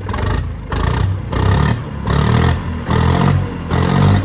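John Deere 5305 tractor's three-cylinder diesel engine blipped in about six quick revs, each surge lasting about half a second, through a newly fitted steel silencer.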